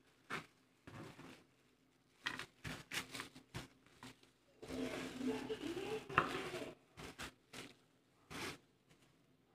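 Hands in plastic gloves handling and sorting small chilies: intermittent rustling and crinkling with scattered small clicks. A muffled voice comes in for about two seconds in the middle.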